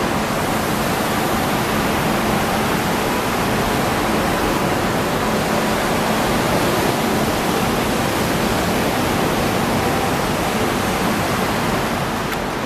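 A high-speed electric train moving through the station, heard as a steady, even rushing noise with a faint low hum under it.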